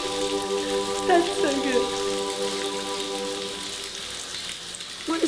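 A shower running, its spray a steady hiss of water. A woman sobs briefly about a second in, over a held musical chord that fades out around the middle.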